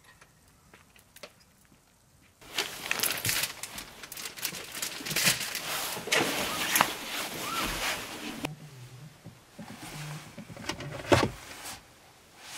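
The wrapping of a flower bouquet crinkling and rustling as it is handled, starting suddenly after a couple of seconds of near silence. It then settles into quieter handling with a few clicks and one sharp click near the end.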